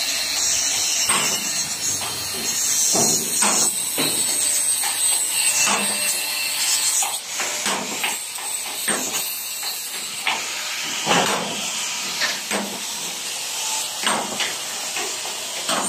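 Steel fabrication work on a gate frame, most likely arc welding: a steady, high crackling hiss with irregular short pops and knocks throughout.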